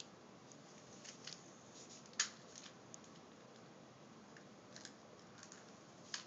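Faint clicks of a small plastic Easter egg being handled and pulled open, with one sharp click about two seconds in and another near the end.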